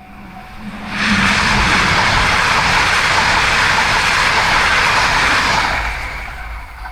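E6 series Shinkansen train passing over a level crossing: a loud rush of wheels and air rises sharply about a second in, holds for about five seconds, then fades. The crossing's warning bell clangs about twice a second at the start and again as the train noise dies away.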